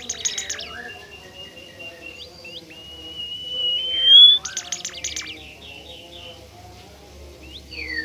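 Bimoli songbird singing. A long clear whistle rises in pitch and breaks into a quick burst of sharp clicking notes about four seconds in, then a few short falling whistles follow. A similar click burst sounds right at the start.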